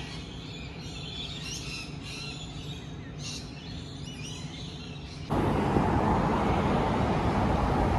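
Birds chirping over a low, steady hum of city traffic; about five seconds in it cuts abruptly to a much louder, steady roar of road traffic noise.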